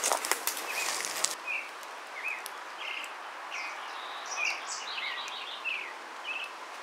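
Footsteps crunching on dry leaves for about the first second and a half, then small birds chirping in many short calls over a steady outdoor hiss.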